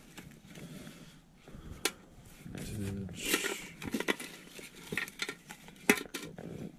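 Hands rummaging through papers and small objects inside a cut-glass bowl: scattered light clinks and knocks against the glass, with paper rustling about three seconds in.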